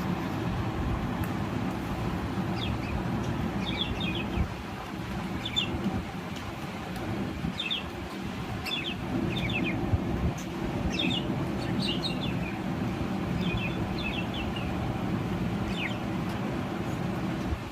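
Budgerigars giving short, quick chirps in small clusters about once a second, over a steady low rumble.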